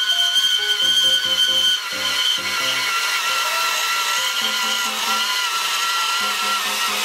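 Makita PB180D cordless portable band saw cutting through a pair of galvanized steel conduit pipes: a steady high whine with a rasp of the blade in the metal, which grows about two seconds in. Background music with a simple melody plays along.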